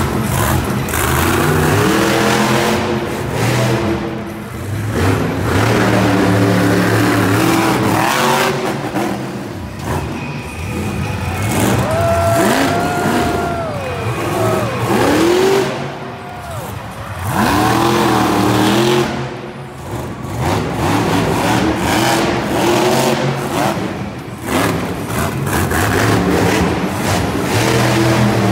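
Blue Thunder monster truck's supercharged V8 engine revving hard over and over, its pitch rising and falling with each burst of throttle and dipping briefly between bursts.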